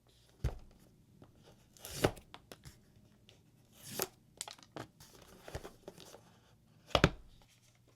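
Phone box being torn open and handled: tearing and crinkling of its packaging in a few short strokes, with sharp knocks of the box, the loudest near the end.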